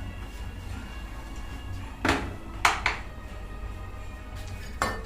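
Background music with steady tones, over which a metal spoon clanks against a cooking pot three times, two louder knocks about two seconds in and a lighter one near the end.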